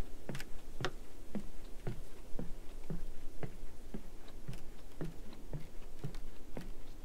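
Footsteps on wooden boardwalk planks at a steady walking pace, about two a second, some with a sharp click.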